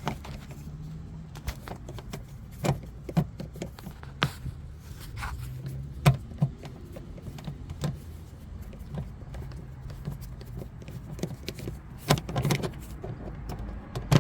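Irregular clicks and light knocks of a screwdriver working a Phillips screw out of the bottom of a car's plastic door panel, with a small flurry of clicks near the end, over a low steady hum.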